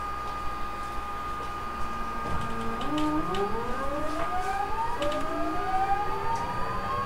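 Onboard a JR East 209 series 3000-subseries electric train's motor car as it pulls away: the GTO-thyristor VVVF inverter and traction motors whine. The whine begins about two seconds in and rises in pitch, first in short steps and then in a smooth climb, shifting its pattern about halfway through, over a steady high tone.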